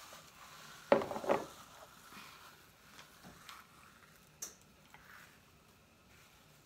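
Ritz crackers being crushed between the hands and crumbled over a casserole, with two sharp crunches about a second in, then faint crumbling and a few light ticks.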